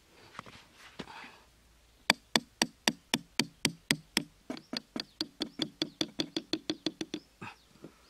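Small hammer tapping a bent wire hook down into sandy soil: about two dozen quick, sharp metal-on-metal strikes starting about two seconds in, speeding up from about four to about six a second.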